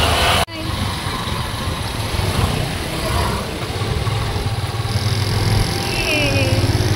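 Steady low rumble of vehicle traffic, with a brief dropout about half a second in.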